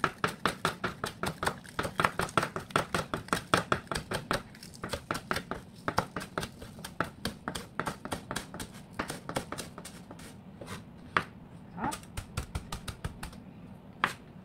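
Kitchen knife chopping green onion on a bamboo cutting board: a fast, even run of about five knocks a second, thinning to a few scattered knocks after about ten seconds.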